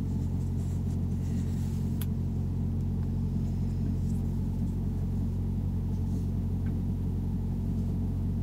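Steady low rumble of a running vehicle heard from inside the cab, with a faint click about two seconds in.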